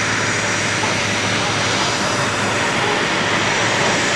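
Steady jet engine noise with a faint whine: A-10 Thunderbolt II twin turbofans running up on the ground close by, drowning out the de Havilland Vampire flying overhead.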